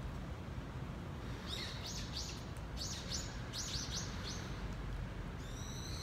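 A bird chirping outdoors: a quick run of short, high chirps starting about a second and a half in, then a longer, harsher call near the end, over a steady low background rumble.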